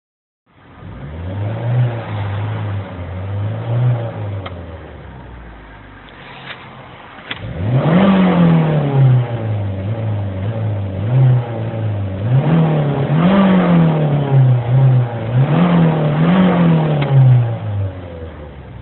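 Fiat Punto 2's 1.2 Fire four-cylinder petrol engine running unevenly: its revs sag and nearly die about six seconds in, pick up sharply near eight seconds, then surge up and down several times before dropping back near the end. The uneven running is the symptom of an internal short circuit in the crankshaft position sensor cable.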